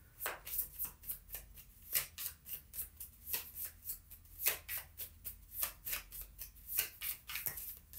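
Tarot cards being shuffled by hand in an overhand shuffle: a quick, uneven run of light card slaps and flicks, about three to four a second, as small packets drop from one hand onto the deck.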